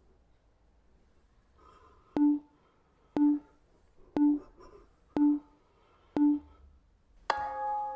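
Five short electronic beeps, one a second, then a ringing, bell-like chime that starts near the end and holds on. It is a workout interval timer counting down the last seconds of an exercise and signalling its end.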